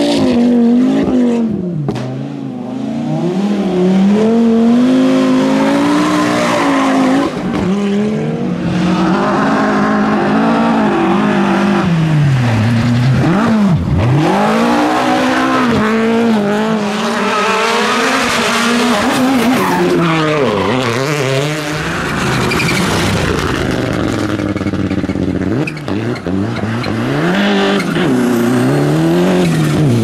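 Rally cars driven flat out one after another, among them an Audi quattro with its turbocharged five-cylinder: engines revving hard and loud, pitch climbing and falling again and again through gear changes and lifts, with sharp drops in pitch as cars sweep past. Tyres scrabble and skid on the loose surface.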